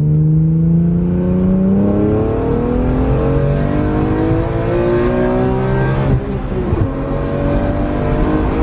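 BMW E46 M3's S54 straight-six engine accelerating on the move, its exhaust note climbing in pitch and dropping at gear changes about two and six seconds in. Catless, with Euro headers and a Status Gruppe V1 muffler, it is loud, with a lot of bass.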